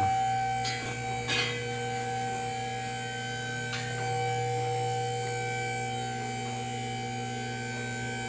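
Steady electrical mains hum with several evenly spaced tones above it, with a few light clicks in the first four seconds.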